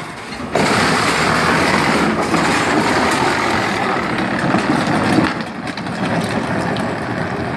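Power Wheels Jeep Hurricane ride-on toy running on a 24-volt upgrade, its electric drive motors, gearboxes and plastic wheels giving a steady noisy whir. It gets louder about half a second in and eases a little about five seconds in.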